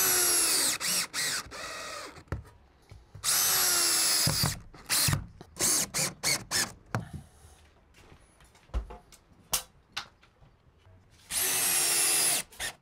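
Cordless drill driving screws to fix metal GIB rail channels onto timber wall studs: three longer runs of the motor whine, at the start, about three seconds in and near the end, with short trigger bursts and clicks between.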